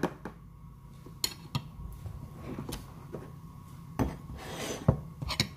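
Hands dredging pieces of canned mackerel in flour in a plastic bowl: scattered knocks and clicks of the bowl and fingers against the wooden table, with a stretch of rubbing about four seconds in.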